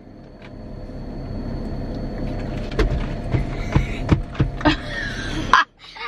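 Minivan cabin noise: a steady low rumble with a faint hum that swells over the first couple of seconds, with several light clicks and knocks from about halfway through. It cuts off abruptly near the end.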